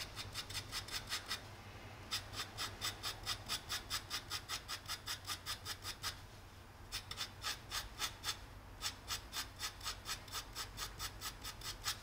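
Graphite pencil shading on drawing paper: quick back-and-forth hatching strokes, about five a second, that stop briefly twice.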